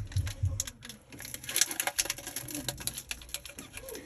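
Foil booster-pack wrapper crinkling and tearing as it is pulled open and handled: a dense, irregular run of small crackles, with a few dull handling thumps at the start.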